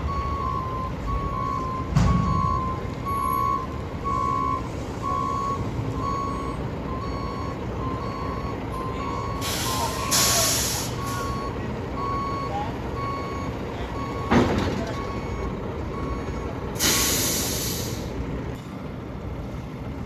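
Backup alarm on a Mack Granite roll-off truck beeping in a steady repeating pattern as the truck reverses, fading out in the second half. Diesel engine rumble underneath, two loud air-brake hisses at about ten and seventeen seconds in, and a couple of sharp knocks.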